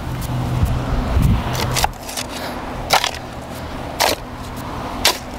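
A steel shovel scraping and pushing loose soil, with four sharp clicks of the blade about a second apart.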